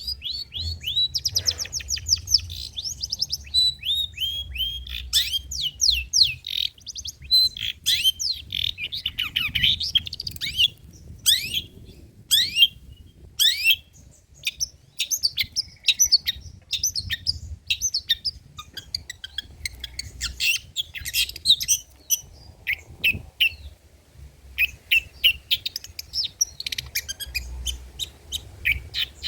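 Long-tailed shrike (cendet) singing a fast, varied song of sharp chirps, quick falling whistles and harsh notes strung together almost without pause, showing off its repertoire of imitated calls.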